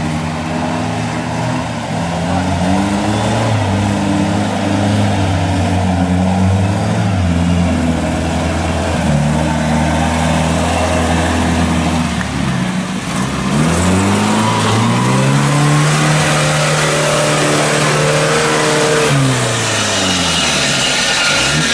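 UAZ-469 off-roader's engine working under load as the vehicle wades through a river and climbs out up a muddy bank. The note holds steady at first, then rises sharply a little past halfway, stays high for several seconds and drops back near the end. Water and mud are splashing from the wheels.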